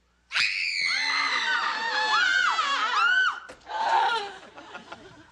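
Several girls screaming in fright: one long, high scream breaks out about a third of a second in, other voices join with wavering cries, and it stops around three seconds in, followed by shorter, quieter cries.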